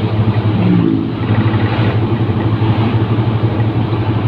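Truck engine running steadily while cruising, heard from inside the cab as a steady low drone over road noise.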